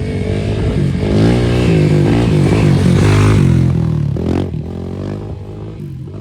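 Yamaha YFZ450R quad's single-cylinder four-stroke engine revving up and down several times, with a quick sharp rev about four seconds in.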